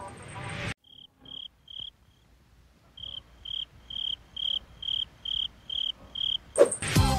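Cricket chirping sound effect: short, high, evenly spaced chirps about two a second, three of them, a pause, then eight more, after the background music cuts off. The comic 'awkward silence' cue laid over a still moment.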